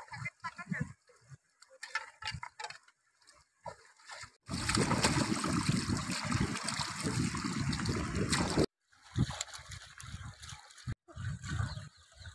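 Hands splashing and scooping water in a shallow stream: a loud, dense splashing that starts abruptly a little over four seconds in and cuts off about four seconds later, with fainter scattered water sounds before and after.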